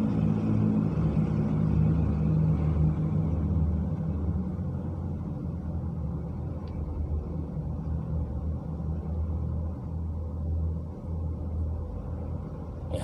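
Low, steady engine-like rumble, a little louder for the first few seconds and then easing off somewhat.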